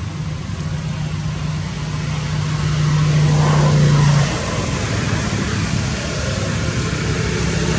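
A motor vehicle's engine running: a steady low hum that grows louder until about four seconds in, then drops off, over a constant rushing noise.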